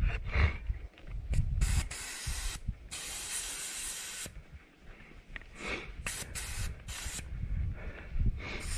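Air hissing out of a mountain bike tire's valve in a series of short bursts, the longest lasting over a second, as the tire pressure is lowered for more grip on the trail.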